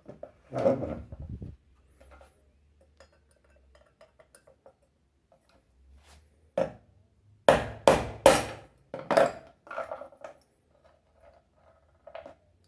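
Sharp metal clicks and taps of pliers working a retaining clip off the fan motor's front bushing housing, with a cluster of about four loud clicks some seven to nine seconds in and a brief scraping knock near the start.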